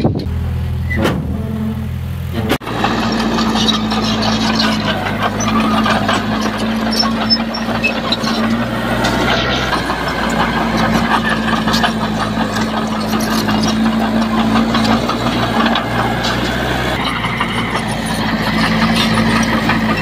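Heavy diesel earthmoving machinery running steadily under load, with metallic rattling over the engine note; the sound changes abruptly about two and a half seconds in.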